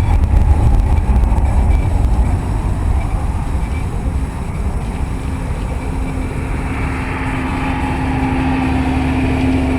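Strong wind buffeting the microphone, with a deep rumble of rolling thunder that is loudest in the first couple of seconds. About halfway through, a steady low hum joins in.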